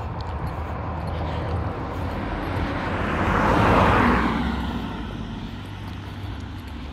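A car passing close by: its tyre and engine noise swells to a peak about three and a half seconds in, then fades, the pitch dropping as it moves away.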